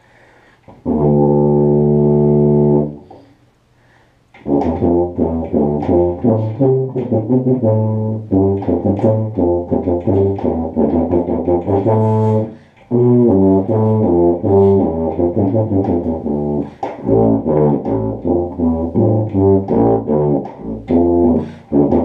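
Tuba played solo: one long held low note about a second in, then after a short pause a steady run of quick notes, broken once briefly near the middle.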